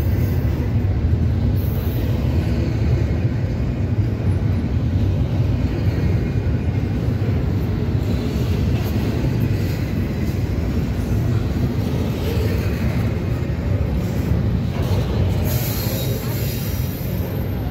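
Double-stack intermodal well cars of a CSX freight train rolling past close by: a steady, heavy rumble of steel wheels on the rails. A higher hiss joins in near the end.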